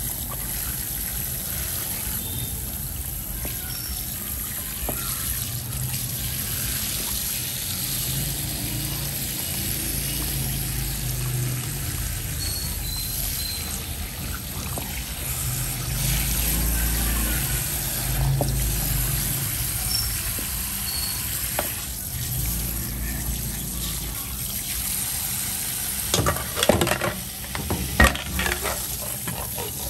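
Tap water spraying steadily onto the sea snail and cutting board at a sink. Near the end come a few sharp knocks as pieces of shell are set down or struck against the board.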